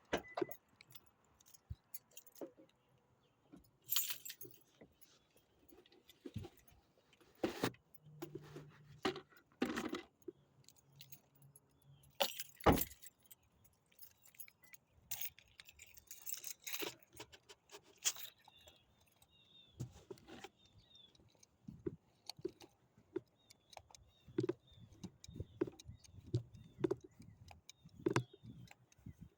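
Irregular metallic jingling, clinks and knocks as keys and fishing gear are handled and a bucket is fetched.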